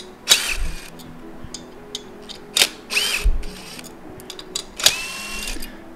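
Cordless impact driver running in three short bursts, each with a brief motor whine, as it spins out the valve cover bolts on a small engine, with a few light metal clicks of the bolts and tool between bursts.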